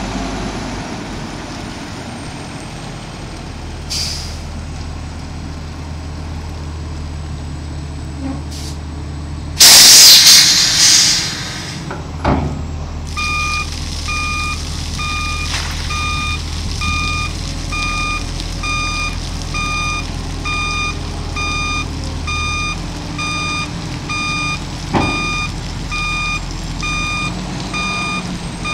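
2007 American LaFrance 30-yard garbage truck running, with a loud burst of air hissing about ten seconds in. From about thirteen seconds a steady warning alarm beeps, about three beeps every two seconds.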